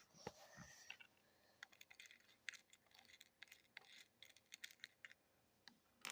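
Near silence with faint, scattered small clicks and taps.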